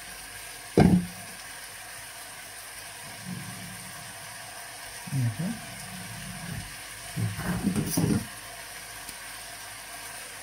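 Kitchen utensils being handled at the stove: a sharp knock about a second in, then a cluster of clatters around 7 to 8 seconds as a plastic bowl and tongs are brought to the pot. A steady hiss runs underneath, fitting a pan frying.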